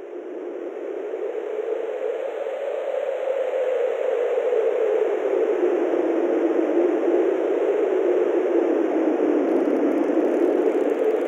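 Wind of a snowstorm blowing, a steady rushing noise that swells over the first few seconds and then holds.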